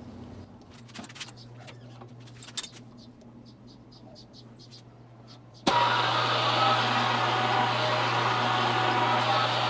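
Milling machine taking a finishing pass across the deck of a cast-iron Ironhead Sportster cylinder head, played back at four times speed. Scattered light clicks at first, then about two-thirds of the way in a sudden jump to the loud, steady running and cutting of the mill.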